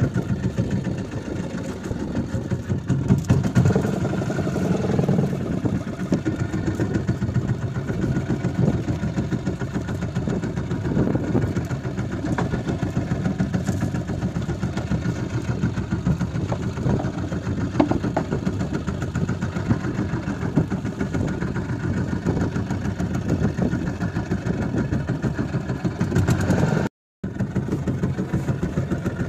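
A fishing boat's engine running steadily at low revs, a continuous low drone with a fine, even firing rhythm. Near the end it drops out completely for a split second.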